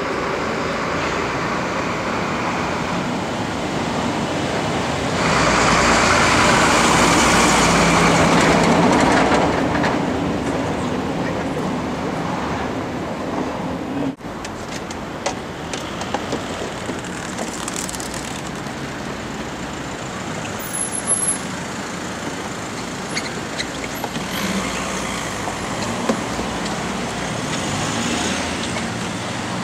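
City street traffic noise, steady throughout. A vehicle passes close and grows loudest from about five to ten seconds in.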